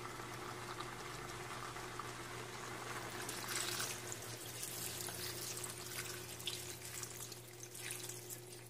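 Water pouring from a container into a wok of sardines and vegetables, splashing onto the food and filling the pan.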